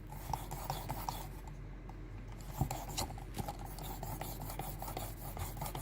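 Sharpening stone on a Work Sharp Precision Adjust rod scraping lightly along a knife edge, with small clicks throughout, as the angle is raised to find where the stone meets the bevel.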